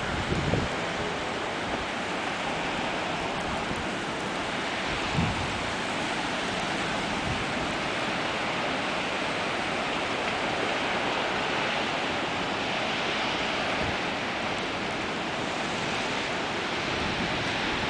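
Strong wind of a dust storm blowing in a steady rush, with a brief low buffet of wind on the microphone about five seconds in.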